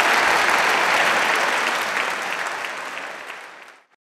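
Audience applauding, a dense steady clapping that fades away over the last two seconds and is gone just before the end.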